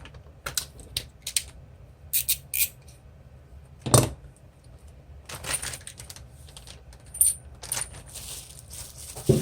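Small hard sewing-machine accessories being handled and put away: a series of sharp clicks and light rattles, the loudest about four seconds in.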